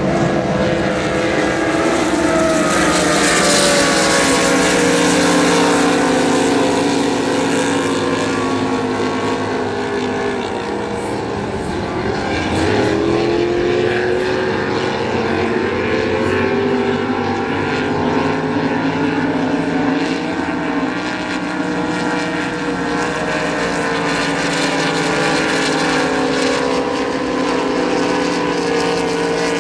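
Engines of several race boats running at racing speed, a loud steady multi-toned drone. The pitch slides down over the first ten seconds or so, dips and climbs again about twelve seconds in, then holds steady as the boats carry on round the course.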